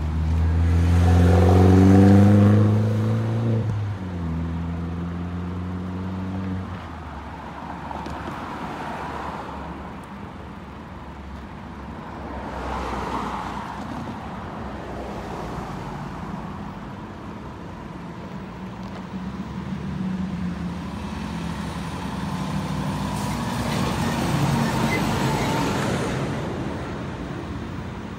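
Road traffic passing: a pickup truck's engine rising in pitch as it accelerates, then running steadily until about seven seconds in. After that, several cars pass one after another, their tyre and engine noise swelling and fading.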